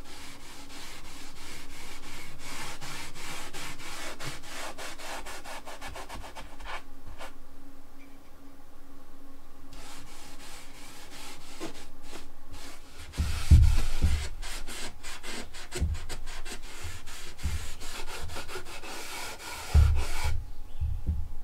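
Rubbing on wood in quick, repeated back-and-forth strokes, with a few heavy low thumps about two-thirds of the way through and again near the end.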